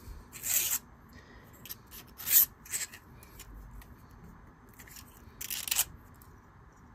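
Two 3D-printed PLA twisted-cone fidget parts being slid through one another, their plastic walls scraping in short swishes: three clearer ones about half a second, two and a half and five and a half seconds in, with fainter rubs between.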